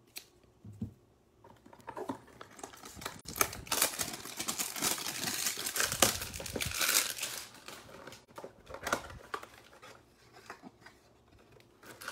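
Plastic wrap being torn and crumpled off a cardboard trading-card hanger box: a dense crinkling from about three seconds in that thins out after about seven seconds, with scattered handling clicks around it.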